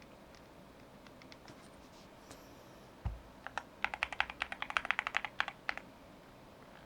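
Mechanical keyswitches on a Cidoo V21 aluminium CNC numpad being typed on: a few light, scattered clicks, a low thump about three seconds in, then a fast flurry of keystrokes lasting about two seconds.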